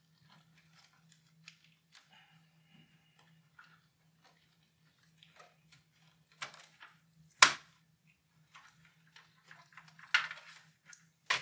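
Computer cables being unplugged from a motherboard: scattered faint rustling and plastic clicks of ribbon-cable and power connectors being worked loose, with a few sharper clicks in the second half, the loudest about seven and a half seconds in. A faint steady hum lies underneath.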